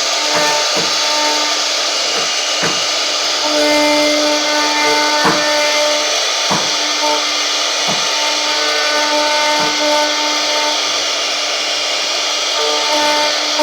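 CNC router spindle cutting wood, a continuous loud hiss, with steady machine tones that switch on and off as it runs.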